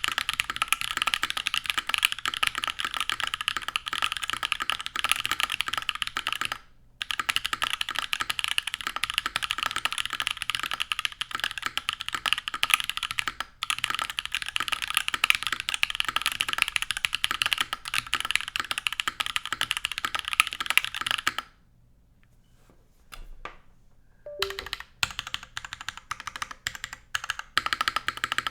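Fast typing on a custom tenkeyless mechanical keyboard (Plywrks Spyder) with Holy Panda tactile switches in a top-mounted full aluminium plate, under GMK keycaps: a dense run of key clicks. The typing breaks off briefly about a quarter of the way in, stops for about three seconds near three-quarters through, then starts again.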